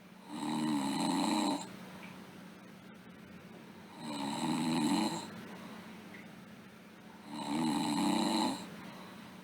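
A sleeping girl snoring: three snores, each a little over a second long, about every three and a half seconds, over a faint steady hum.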